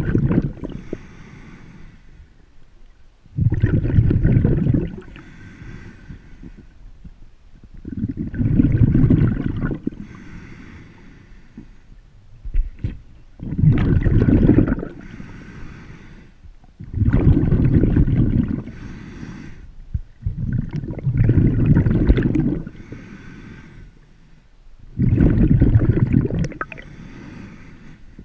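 Snorkeler breathing through a snorkel, heard with the camera underwater: a long, rushing breath about every four seconds, with a low watery wash between breaths.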